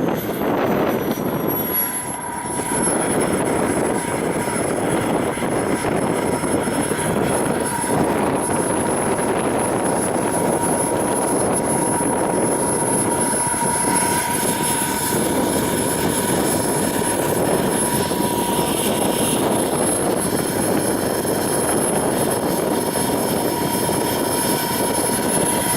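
JetsMunt VT80 model turbojet engine running, its high turbine whine falling in pitch over the first few seconds and then holding steady over a loud rushing noise.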